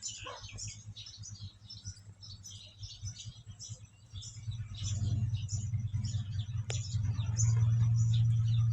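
Many short, high-pitched chirps and squeaks from small animals, overlapping throughout. Under them runs a steady low hum that swells from about halfway and becomes the loudest sound near the end.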